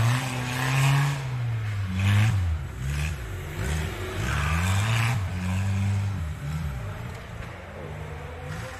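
Off-road competition vehicle's engine revving up and down over and over, its pitch rising and falling every second or so, with a few short rushes of noise in between.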